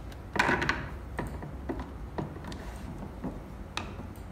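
Plastic clicks and knocks as a plastic filter spanner is handled against the ribbed plastic housing caps of an RO purifier's filter cartridges. There is one louder, longer rub about half a second in, then scattered single clicks.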